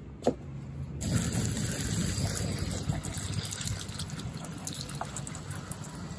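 Water pouring in a steady stream. It starts abruptly about a second in and slowly eases off.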